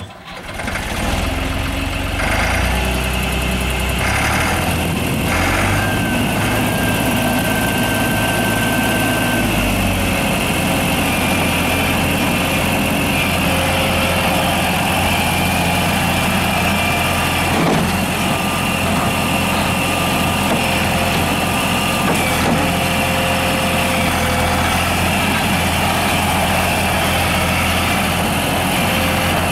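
New Holland LS180 skid steer loader's diesel engine running, mostly steady.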